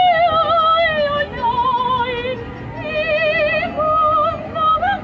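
Solo violin playing a slow melody in long held notes with wide vibrato.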